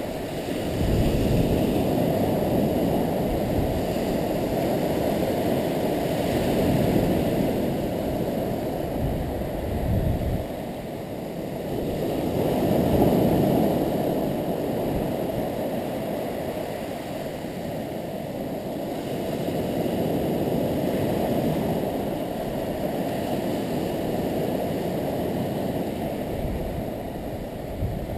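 Surf on the beach: a steady wash of waves that swells and fades every several seconds.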